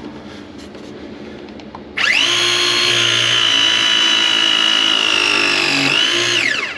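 Cordless pipe press tool crimping a copper press-fit fitting: the motor starts suddenly about two seconds in, runs with a steady high whine for about four seconds, then winds down in a falling whine as the press cycle completes.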